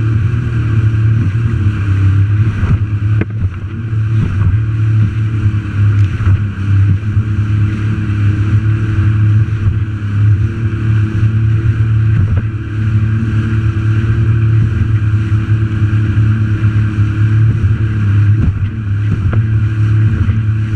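Jet ski under way at speed, its engine running at a steady pitch under the rush of spray and water against the hull.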